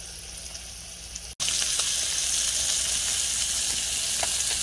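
Seasoned fish fillets sizzling in oil in a nonstick frying pan: a steady hiss with scattered small pops and crackles. About a second and a half in, the sizzle suddenly becomes louder.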